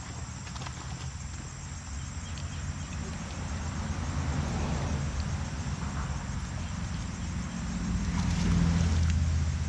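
Insects trilling steadily in a high, thin tone over a low motor hum that grows louder toward the end.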